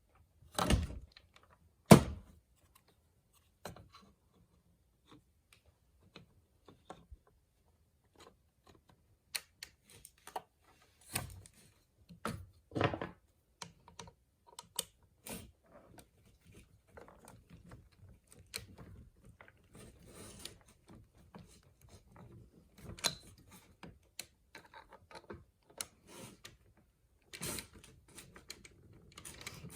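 Handling and fitting together Nerf blaster parts: two sharp knocks in the first two seconds, then scattered clicks and short rattles.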